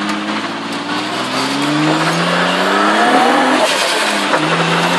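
A drift car's engine, heard from inside its stripped cabin, revving up as the car pulls away. Its pitch climbs over the first two or three seconds, then drops back and holds steady near the end.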